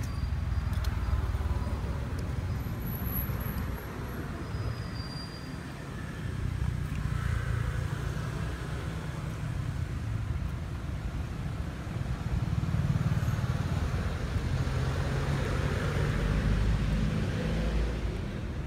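Steady low outdoor rumble that swells and eases in loudness, of the kind left by distant road traffic or wind on the microphone.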